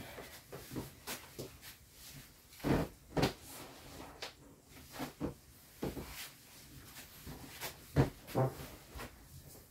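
Irregular footsteps and knocks with handling noise as a large inflatable vinyl toy motorcycle is fetched and carried back. The loudest pair of thumps comes near the end, as the inflatable is brought past close up.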